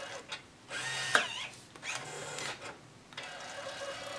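Brother P-touch PT-E550W handheld label printer printing a label. Its tape-feed mechanism whirs in a few short runs, then a steadier whine begins about three seconds in.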